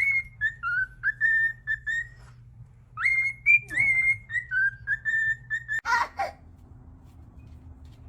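A pet bird whistling the same short tune twice: a run of clear, piping notes that steps down in pitch, repeated after a one-second pause. A short noisy burst follows near the end of the second phrase.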